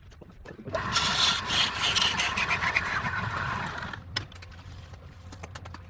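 Wood lathe running with a steady hum. About a second in, a tool is pressed to the spinning wood, giving a loud scraping cut for about three seconds before it eases off.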